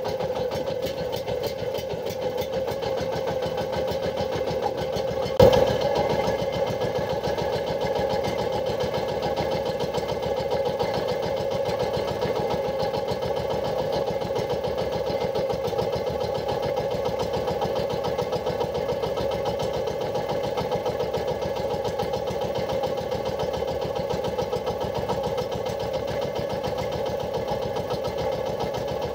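A small fishing boat's engine running steadily at a constant speed, with one sharp knock about five and a half seconds in.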